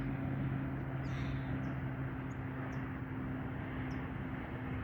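Outdoor ambience: a steady low hum under a faint hiss, with a few short, high chirps of small birds scattered through.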